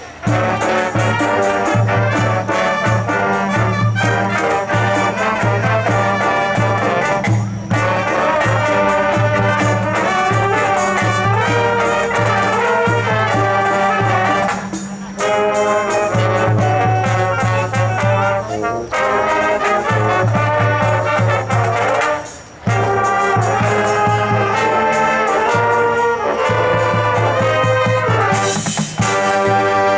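Marching band playing, brass to the fore: sustained brass chords over a repeating low bass note, with short breaks between phrases, the deepest about two-thirds of the way in.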